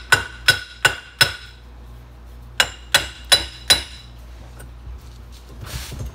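Brass hammer striking the cast-iron exhaust manifold of a 2.2L turbo engine to knock it free of its studs. There are two quick sets of four ringing metallic blows about two seconds apart, then a short hiss near the end.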